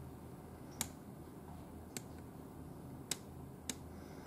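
Four sharp, short clicks over a faint steady low hum, the first three evenly spaced about a second apart.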